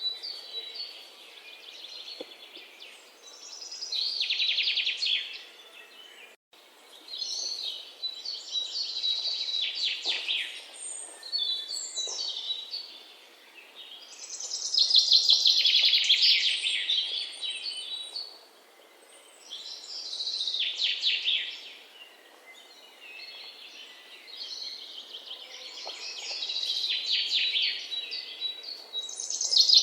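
Birds chirping and twittering in dense, high bursts a few seconds long that swell and fade in turn, with a brief dropout about six seconds in.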